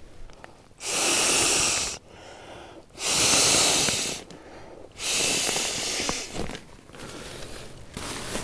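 A green inflatable pad being blown up by mouth: three long, forceful breaths pushed into its valve, each one to one and a half seconds long, with quieter in-breaths between.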